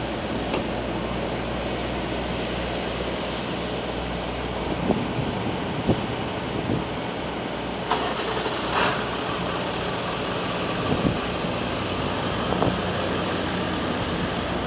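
Steady low engine hum from a parked fire department mobile command truck, with a few light knocks.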